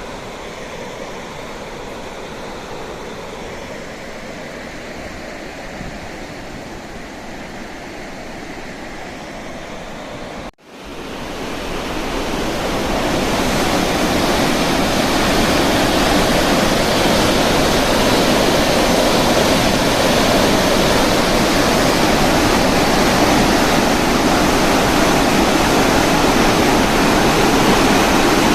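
Floodwater pouring through a concrete dam's fully opened spillway gates in a steady, heavy rush. About ten seconds in, the sound cuts out for an instant and returns much louder and fuller, then holds steady.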